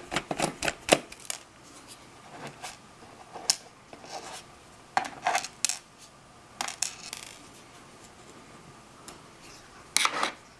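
Small metal-on-plastic clicks and taps from a number 0 Phillips screwdriver and tiny screws on a plastic clock case as the screws are backed out and handled. There is a quick run of clicks at first, scattered taps after that, and a louder cluster near the end.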